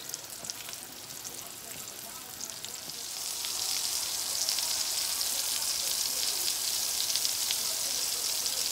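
Butter sizzling and frying in a hot nonstick frying pan. It is quieter at first with a few light clicks, then grows louder about three seconds in as butter melts over the hot pan, and keeps up a steady crackling hiss.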